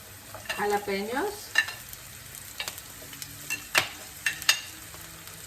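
Chopped onion, garlic and jalapeño frying in olive oil in a pan, with a light steady sizzle and several sharp clicks and taps as they are stirred.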